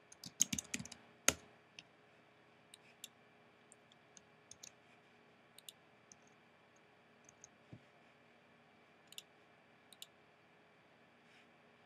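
Typing on a computer keyboard, a quick run of keystrokes ending in one sharp click about a second in, followed by scattered faint single clicks from the keyboard and mouse.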